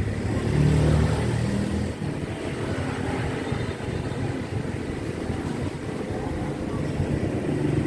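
Steady low motor-vehicle engine rumble, swelling about a second in and again near the end.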